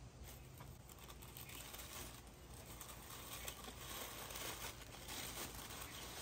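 Soft rustling and crinkling of white packing tissue paper being handled and folded back from shoes in a cardboard shoebox, busier and a little louder in the second half.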